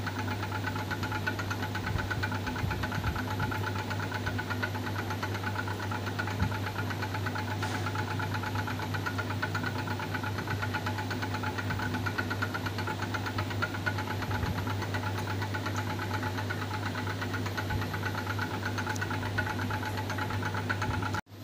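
Magnetic stirrer running steadily, its motor giving a low hum with a fast, even whirring flutter as the stir bar spins in the glass beaker. The sound cuts off abruptly just before the end.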